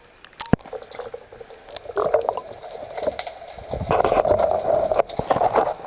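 Water gurgling and sloshing around the camera as it goes from the surface to underwater, with a sharp click about half a second in and a rough bubbling noise that grows louder from about four seconds.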